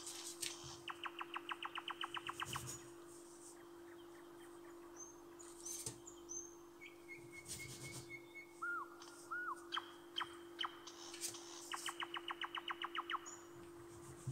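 A songbird singing, with two rapid trills of about a dozen notes a second, one about a second in and one near the end, and short arched chirps and high hooked notes between them. A steady low hum runs underneath.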